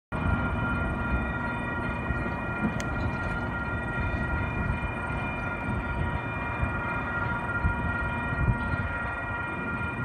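Distant approaching Union Pacific freight train, with a steady high ringing tone held throughout over a constant low rumble.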